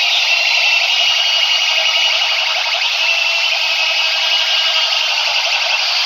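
Loud, distorted blare of rival DJ sound systems playing at once, heard as a harsh, shrill, wavering tone with almost no bass.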